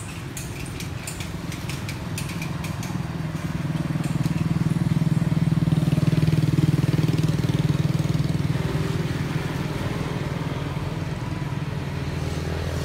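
A passing motor vehicle's engine hum, growing louder to a peak about six seconds in and then fading.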